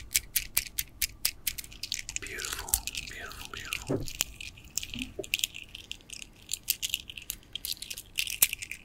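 Round gemstone beads of a bracelet being handled close to the microphone, clicking against each other and the fingers in quick, irregular clicks.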